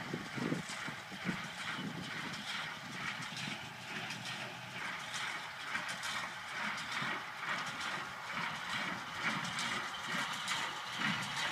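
John Deere 6110 tractor running while a hay baler works behind it, with a steady, rapid clatter of mechanical knocks.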